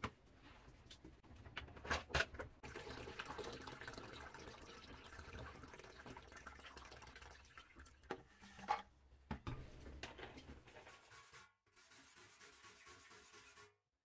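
Liquid glugging and splashing as it is poured from plastic bottles into a plastic bucket around a metal fuel can, a steady pour lasting several seconds, with a few sharp knocks of the bottles and bucket near the start and again near the end.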